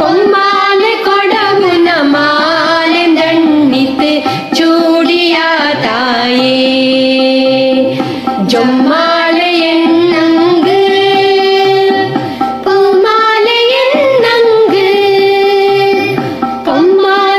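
A girl and a young boy singing a devotional song in Carnatic style, with held, ornamented notes, over an accompaniment with a steady drum beat.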